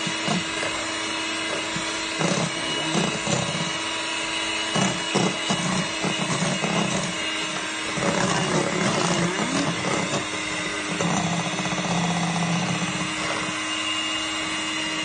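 Small electric hand mixer running steadily, its beaters whipping egg whites and powdered sugar into meringue icing in a stainless steel bowl, with a steady motor hum and an uneven rumble as the beaters work the thickening mixture. The little mixer is starting to get hot under the load.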